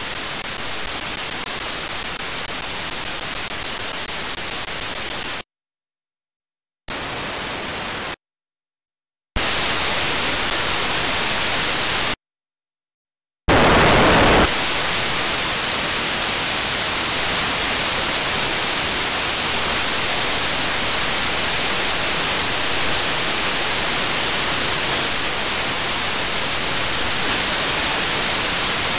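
Steady hiss of radio static from a software-defined radio running HDSDR, with no station coming through on local wideband FM. Between about five and thirteen seconds in, the hiss cuts to dead silence three times, with a short, quieter and duller stretch of hiss in between. It then comes back louder and runs on steadily.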